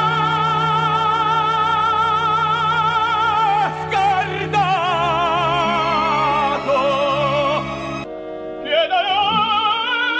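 Operatic singing: a trained voice holds long notes with a wide vibrato over sustained low accompaniment. It breaks off near the end and comes back in on a rising note.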